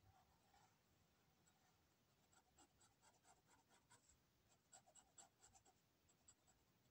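Faint scratching and ticking of an ink pen's nib on paper in short, quick strokes: a run of small ticks, several a second, starting about two seconds in.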